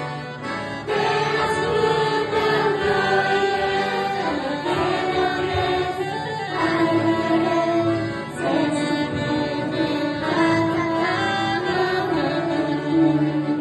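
Children's choir singing a Christian praise song in phrases of held notes, accompanied by alto saxophone, accordion and electronic keyboard.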